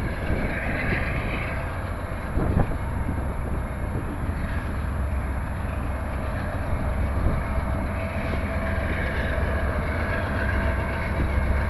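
Freight train rolling past: a steady rumble of wheels on rail, with a sharp clank about two and a half seconds in.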